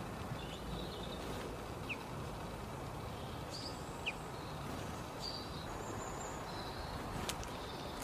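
Faint, scattered short chirps and high calls of small garden songbirds over a steady background rumble and hiss, with a single sharp tick near the end.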